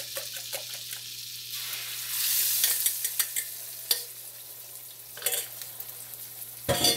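Beaten eggs sizzling as they are poured into a hot wok of melted butter and oil, the sizzle swelling about two seconds in. Before that come quick rhythmic clinks of the eggs being stirred in a metal bowl, then a few scrapes as the bowl is emptied, and a sharp knock near the end.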